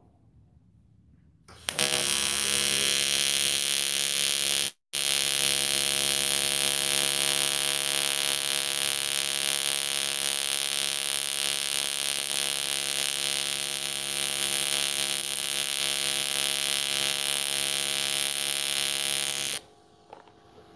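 AC TIG welding arc from a Miller Dynasty 210 on aluminium pipe, a steady loud buzz with hiss as a short bead is run. It strikes about a second and a half in, breaks off for a moment about five seconds in, and cuts off just before the end when the arc is broken.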